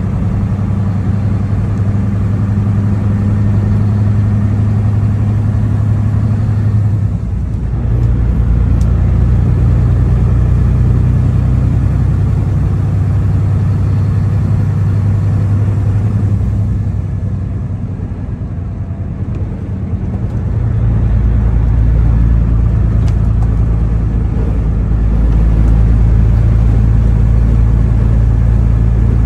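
A semi truck's diesel engine drones steadily with tyre and road noise from inside the cab. Its note shifts about seven seconds in and again around twenty seconds in, with a brief dip in loudness just before the second change.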